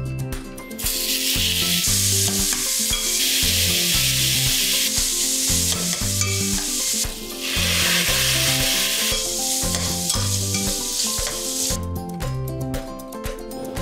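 Pork belly slices sizzling as they fry in hot oil in a stainless steel pan while being stirred. The sizzle starts about a second in, dips briefly about halfway, and stops near the end, with background music throughout.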